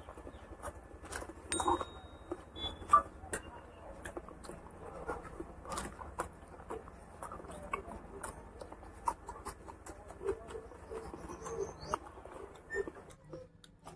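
Close-miked eating sounds: chewing and lip-smacking with irregular wet clicks, along with fingers picking up rice and curry from a plastic sheet.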